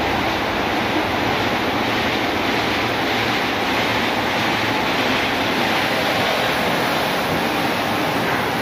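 Automatic car wash running: a steady rush of water spraying from the shower nozzles onto a car, with the rotating brushes scrubbing, unbroken throughout.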